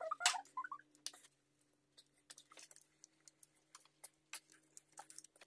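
Hand ratchet clicking in short, irregular runs, with light metal taps of tools on engine bolts, loudest in the first second.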